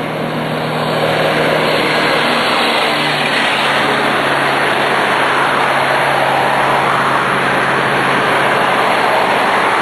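Road traffic passing close by on a busy road: engine and tyre noise swells in the first second and stays loud, with a low engine tone that drops in pitch about three seconds in as a car goes past.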